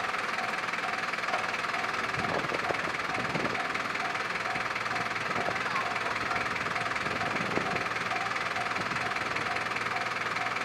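Japanese railway level-crossing alarm ringing steadily, about two rings a second, over the continuous noise of a passing train.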